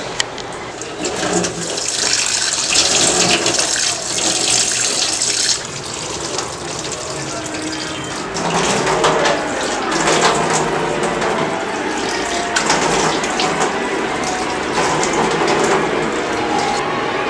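Water running from a faucet into a sink, with hands catching the stream. The rushing hiss is loudest for the first few seconds, then goes on more softly.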